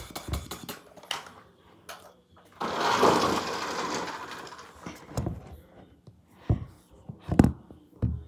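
A toy RC car's small electric motor whirs for about two seconds, then trails off. A few sharp knocks follow later on.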